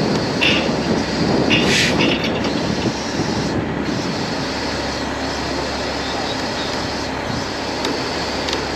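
Heavy-duty wrecker's diesel engine and hydraulics running steadily, with two short high squeals about half a second and two seconds in.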